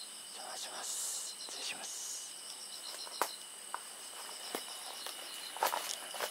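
Crickets and other night insects chirping: a steady high trill under a rapid pulsed chirping that runs on without a break. A few sharp clicks come through about three seconds in and again near the end.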